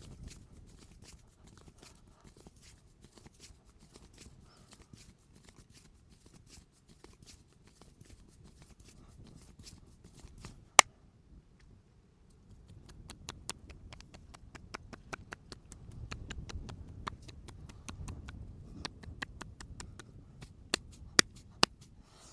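Hands massaging and tapping a person's head and shoulders: a steady run of small dry taps and clicks, with one sharp crack about halfway through and three more loud snaps near the end.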